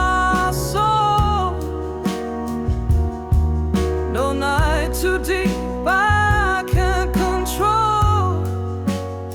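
Slow blues ballad in an instrumental break: a lead melody of bending, sliding notes over a steady bass line and drum hits.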